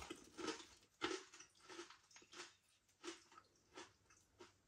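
A person chewing crunchy barbecue beef flavoured potato hoop crisps: a string of faint, uneven crunches, about two a second.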